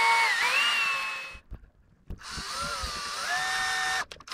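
Electric drill running in two bursts, its whine rising and falling with the trigger as it widens a too-small hole through a leather strap handle. It stops about a second and a half in, starts again half a second later, speeds up, and cuts off just before the end.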